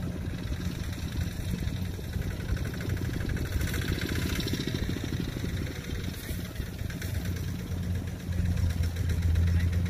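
Diesel engine of rice-harvesting farm machinery running steadily, swelling louder near the end.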